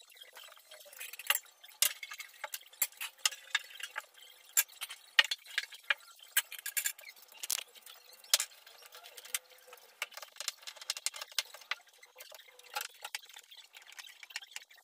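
Irregular clicks, knocks and clinks as ceramic vases and a plant pot are set down and shifted about on a polished dining table.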